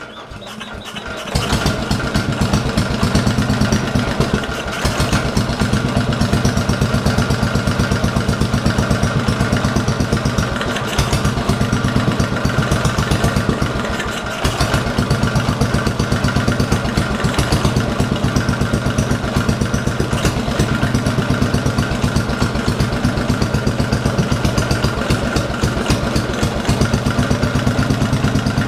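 Cast-iron 16 hp Briggs & Stratton single-cylinder engine cranked on choke from cold, catching within about a second and then running steadily with an even firing beat. The note sags briefly twice.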